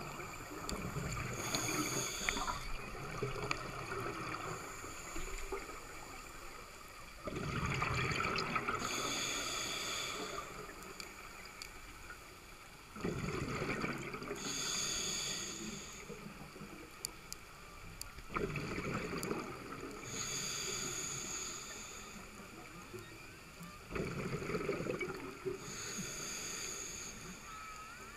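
Scuba diver breathing through a regulator: about five breaths, one every five to six seconds, each a hiss with a whistling edge from the regulator and a sudden burbling rush of exhaled bubbles.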